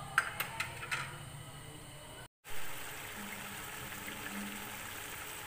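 A few light metal clinks against a cooking pot in the first second. Then, after a brief break, a steady hiss of a pot of peas, potatoes and masala cooking in ghee, bubbling and sizzling.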